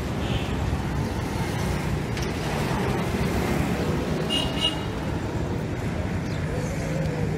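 Steady street traffic noise from cars and motorcycles moving along the road, with two short high beeps in quick succession about four and a half seconds in.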